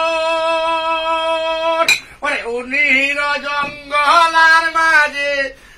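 A man singing: he holds one long steady note, a short click sounds about two seconds in, and then he sings a wavering line that dies away near the end.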